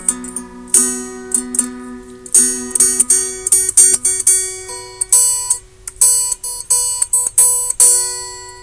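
Acoustic guitar playing an instrumental piece: strummed and plucked chords that ring and fade, with a run of quick repeated strums about five seconds in.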